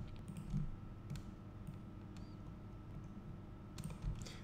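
Scattered clicks of a computer mouse and keyboard, a few in the first two seconds and a quick cluster near the end, over a low steady hum.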